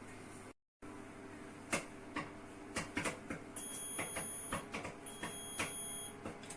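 Popcorn kernels popping in a silicone popcorn bowl inside a running microwave oven: scattered sharp pops over the oven's hum. Two long electronic beeps, about a second each, come in the second half, the microwave signalling that the cooking is done.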